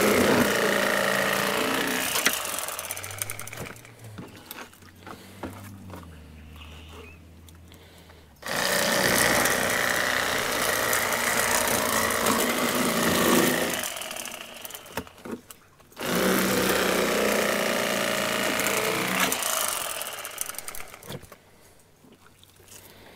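Cordless Bubba Blade electric fillet knife running in three spells of several seconds each, its reciprocating serrated blades sawing through crappie; quieter clicks and handling between the spells.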